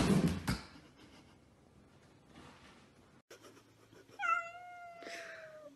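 Cardboard box rustling and rattling as a cat moves inside it, fading out within the first second. Then a long-haired calico cat gives one long meow about four seconds in, rising briefly and then held on a slowly falling tone for about a second and a half.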